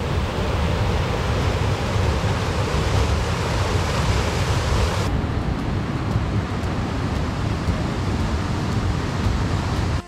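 Mountain stream rushing down a granite rock channel: a steady rush of water. About five seconds in, the sound turns duller as its hiss drops away.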